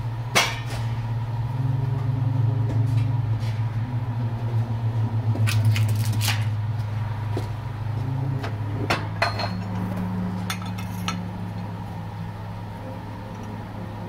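Metal clinks and knocks from a steel triple clamp being handled on a shop press. Under them runs a steady low machine hum, which changes pitch about eight and a half seconds in.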